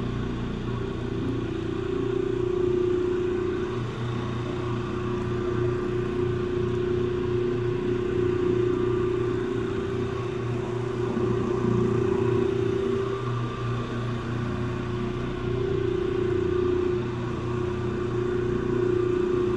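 Electric rotary floor machine running with its pad scrubbing carpet: a steady motor hum that wavers slightly in pitch and loudness as the machine is swung across the pile.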